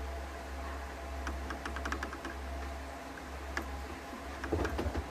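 Typing on a mechanical keyboard fitted with translucent ABS keycaps: irregular key clicks over a steady low hum.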